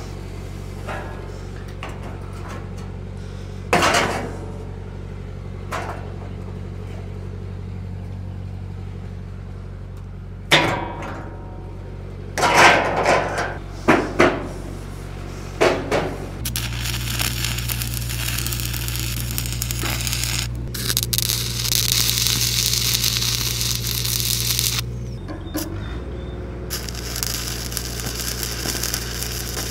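A steel door frame is knocked and shoved into a shipping container's cut opening: several sharp metal bangs. Then stick welding crackles and hisses in two long runs as the frame is welded in. Under it a welding rig's engine hums steadily, its pitch stepping up when the arc is struck.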